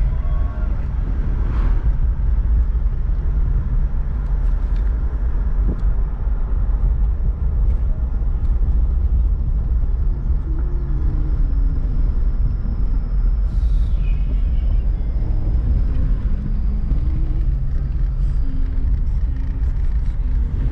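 Steady low engine and road rumble of a car driving, heard from inside the cabin.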